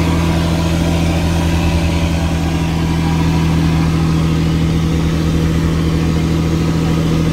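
Fishing boat's engine running steadily at an even pitch: a loud, low, unchanging hum close by.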